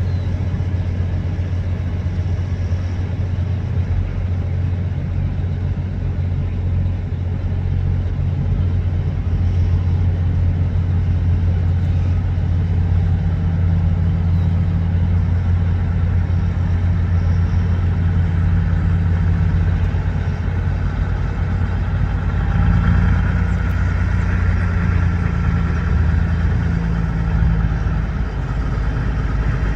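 Heavy diesel truck engine running with a steady low drone. The engine note grows fuller about twelve seconds in and swells briefly a little past twenty seconds in as the truck rolls slowly closer.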